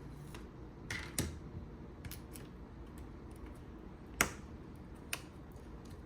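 About five small, sharp clicks and taps, the loudest about four seconds in, from tools and parts being handled inside an opened smartphone as its charging port board is fitted.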